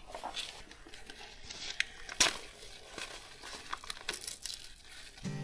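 Crinkling and rustling as a container of live crickets is handled, with a few sharp clicks and taps.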